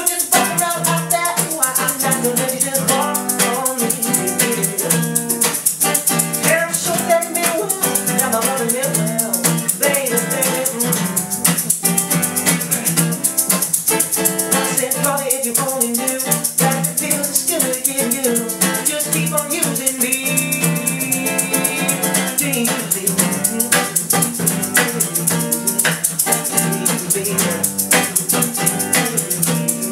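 Acoustic guitar playing with a shaker keeping a steady rhythm, an instrumental passage of a song.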